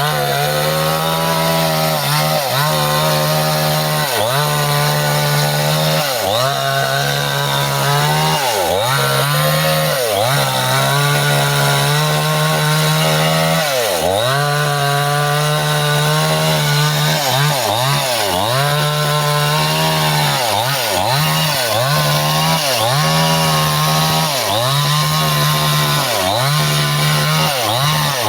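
Stihl chainsaw running at high revs while cutting up Bendo wood. Its pitch repeatedly drops and picks back up as the chain bites into the wood and comes free, the dips coming faster in the second half.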